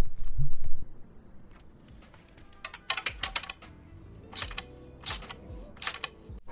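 Hand socket ratchet clicking in short runs of ticks as a 16 mm engine mounting bolt is worked loose, after a few low knocks of handling in the first second.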